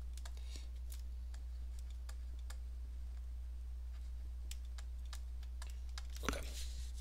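Stylus tapping and scratching on a tablet screen during handwriting: a run of faint, irregular clicks over a steady low hum.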